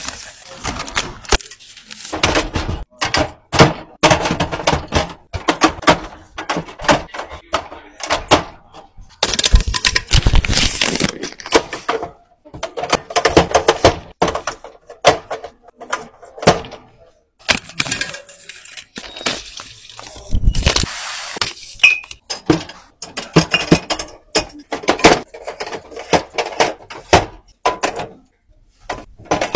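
Aluminium drink cans and glass bottles knocked and set down one after another into a vending machine's metal drink tray, a steady run of clinks and thunks. Twice, for a couple of seconds each, plastic shrink-wrap crinkles and tears as a can pack is opened.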